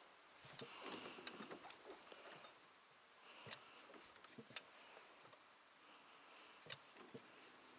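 Near silence broken by a handful of faint, sharp clicks, about five, spaced irregularly a second or more apart.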